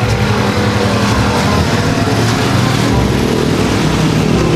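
Road traffic with motorcycle engines running steadily close by, a constant low engine hum.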